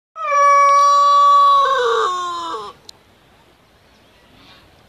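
Rooster crowing once, loud and close: a long held note that drops in pitch in its last second, about two and a half seconds in all.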